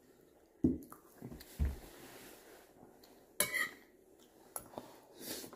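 Scattered knocks and clinks of dishes and utensils on a table during a meal: a couple of dull thumps, then a sharper clatter about halfway through, and a few lighter taps near the end.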